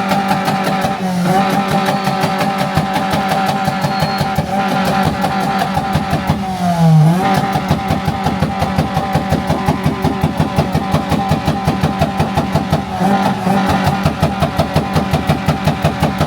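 Car engine held at high revs on a two-step launch limiter: a steady high drone chopped by rapid, even popping about four to five times a second. The revs dip briefly a few times.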